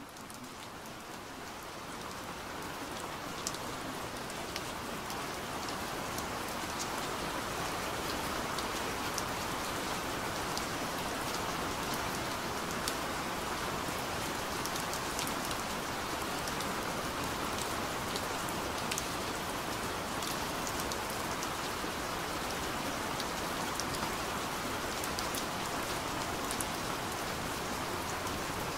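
Steady rain falling, with scattered sharper drop ticks through the steady hiss. It fades in over the first few seconds, then holds level.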